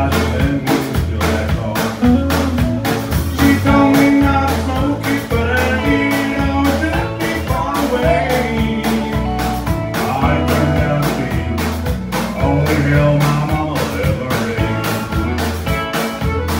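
Live country band playing an up-tempo song: drum kit keeping a steady beat under strummed acoustic guitar and fiddle, with a man singing lead.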